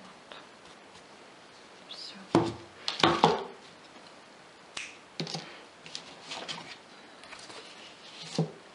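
A few sharp clicks and short rustles as a ribbon embroidery on its card mount is turned over and back, with small scissors snipping off ribbon ends on its back.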